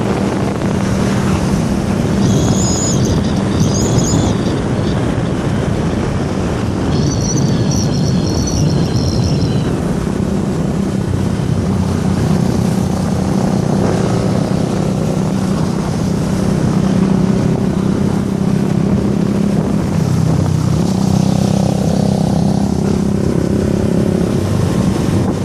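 A motor vehicle's engine and road noise running steadily, with two brief spells of high chirping a few seconds in.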